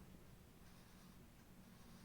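Near silence: room tone with a faint steady low hum and a few soft, brief hissy rustles.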